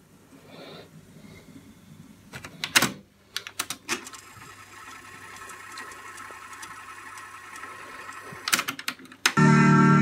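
A Pioneer double cassette deck's buttons and transport clicking as a tape is loaded and started, then a faint steady hiss as the tape runs. Music comes in loudly from the tape about nine seconds in, showing the deck plays.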